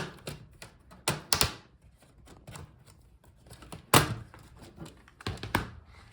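Plastic snap clips of a Dell Latitude 5411 laptop's bottom case popping loose one after another as a plastic pry tool works around the edge, sharp clicks and snaps at uneven intervals, the loudest about four seconds in.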